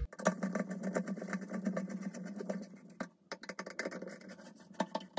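Screwdriver turning a trim-ring screw into the threaded hole of a Delta shower valve: a rapid run of small metallic clicks and scraping that pauses briefly about three seconds in, then goes on with more widely spaced clicks.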